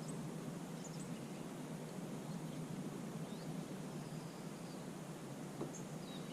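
Several short, faint bird chirps over a steady low background rush.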